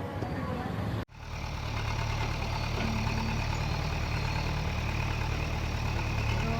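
Background music cuts off abruptly about a second in. A heavy diesel engine, the JCB machine moving the tree, then runs steadily at low revs.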